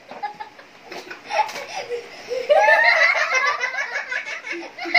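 Two young girls laughing, quieter and broken at first, then loud, high-pitched laughter from about halfway in.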